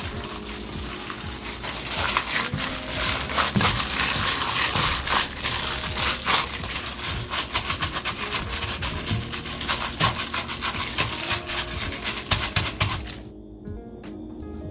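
Jeon frying in oil in a pan: a dense sizzle full of crackles that cuts off abruptly near the end. Soft background music plays underneath.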